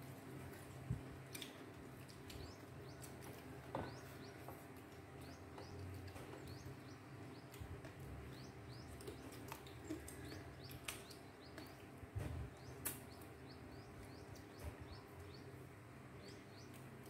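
Small birds chirping: many short rising tweets, over a steady low hum. A few light clicks, like utensils against bowls.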